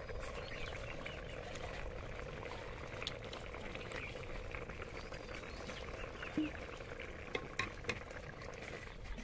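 Fish curry simmering and bubbling in a metal pot over a wood fire, a steady low bubbling with a few short sharp clicks scattered through it.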